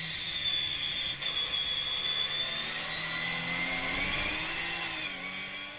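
Racing car engines at high revs, a whining engine note that climbs and then falls back around the fourth and fifth seconds.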